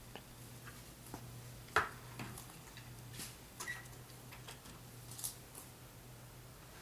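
Faint, scattered knocks and clicks of things being handled and set down in a wooden shed, the loudest about two seconds in, over a steady low hum.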